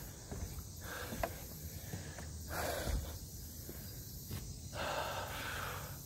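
Footsteps of a hiker walking on a dry dirt trail, with heavy breathing close to the microphone, a breathy exhale about every two seconds.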